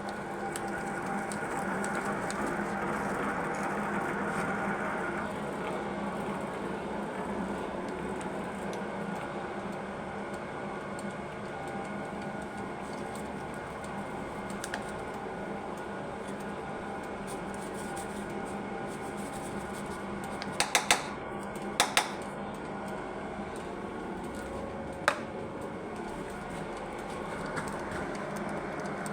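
Conventional metal lathe running steadily, its motor and gearing humming as it turns hard plastic stock. A few sharp clicks come about two-thirds of the way through, with one more shortly after.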